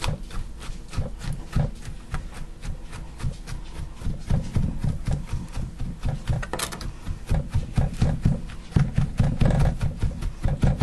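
Chef's knife chopping sliced olives on a plastic cutting board: quick, even taps of the blade hitting the board, several a second, growing louder in the second half.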